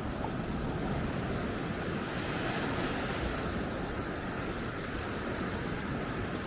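Sea waves washing onto the beach in a steady rush of surf, with some wind on the microphone.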